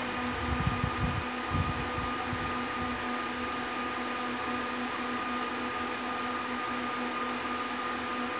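Steady fan hum from equipment cooling in a telecom rack, with a few fixed whining tones in it. A few low handling bumps in the first two seconds.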